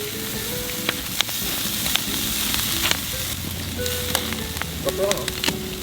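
Marinated beef short ribs sizzling on a grill over a wood fire, a steady hiss broken by scattered sharp pops.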